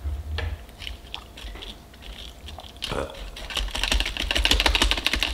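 Crispy KFC fried chicken breading crackling and crunching as a piece is torn apart by hand close to the microphone, with scattered crackles at first and a dense run of rapid crackles in the last two seconds.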